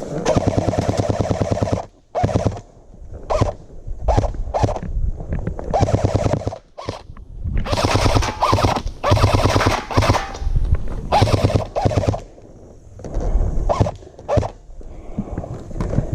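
Airsoft guns firing in rapid full-auto bursts, with scattered single shots between them: one long burst of about two seconds at the start, then several shorter bursts.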